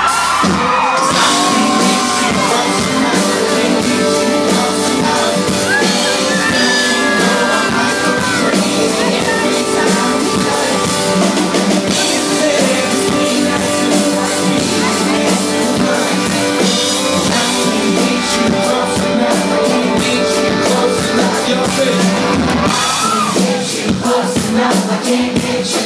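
Live country band playing loudly, with a man singing lead over it.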